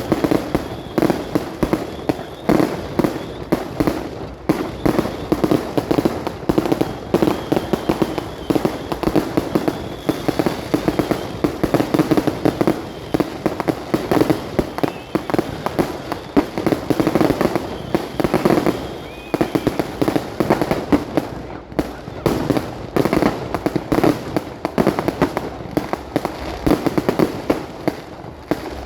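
Fireworks display: a continuous rapid barrage of overlapping bangs and crackling with no let-up.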